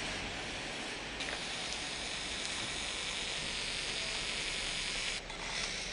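Steady hissing noise, with brief breaks about a second in and near the end.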